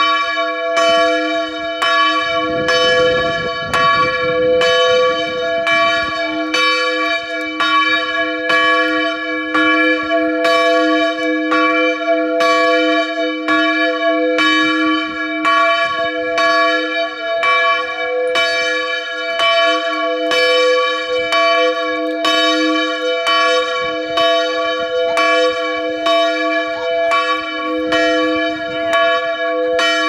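A single church bell in a new bell tower, rung by pulling its rope, striking over and over in a steady, quick rhythm so that each stroke rings on under the next.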